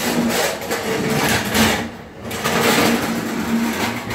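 An engine running, its level dipping briefly about two seconds in.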